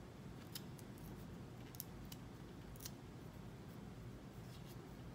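Faint scattered clicks and scratches of fingers picking and handling the edge of a freshly gripped fingerboard deck, with a low room hum under them.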